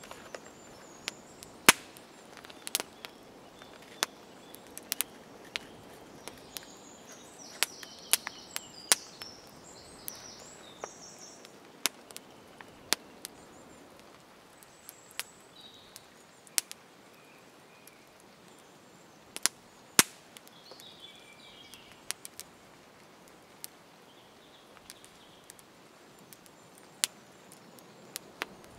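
Small wood fire crackling, with sharp, irregular pops and cracks over a soft steady hiss. A few bird chirps come in several seconds in.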